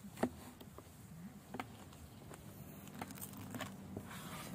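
Kitchen knife cutting into the roasted skin of a whole stuffed chicken: a few sharp crackles, the loudest about a quarter second in, then a rasping sawing sound starting near the end.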